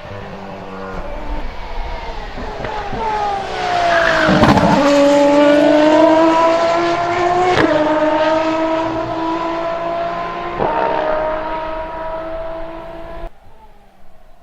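Aston Martin Valkyrie's naturally aspirated V12 at high revs, passing close by about four seconds in with a sharp drop in pitch. It then pulls away with rising revs broken by quick upshifts about three seconds apart. The sound cuts off abruptly near the end.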